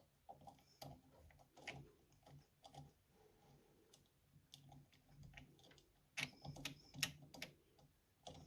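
Faint, scattered small clicks and taps of a wire being fitted into a connector pin or screw terminal, with a quick run of louder clicks about six seconds in.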